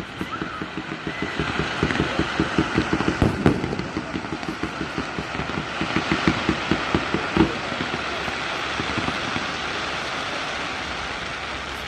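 Fireworks barrage: a rapid string of low thumps, roughly ten a second, with louder bangs about three and seven seconds in, over a steady hiss. The thumps stop about seven and a half seconds in and the hiss slowly fades.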